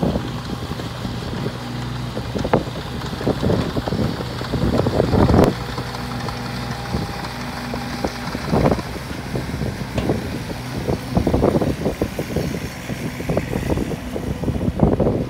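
Kubota KX015-4 mini excavator's three-cylinder diesel engine running at a steady pitch while the machine tracks and turns.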